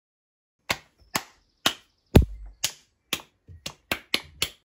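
Hand claps recorded close to a microphone as a song's clap-track beat: about ten sharp claps, at first evenly about two a second, then coming quicker near the end.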